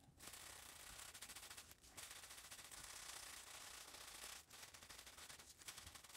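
Plastic-gloved hand rubbing over small wooden pieces: a faint, steady crackly rustling of the thin plastic glove against the wood, broken by two brief pauses.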